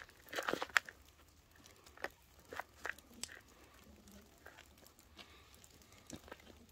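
A hand crumbling and stirring dry, lumpy soil in a plastic plant pot: gritty crunching and rustling, densest in the first second, then a few scattered crackles.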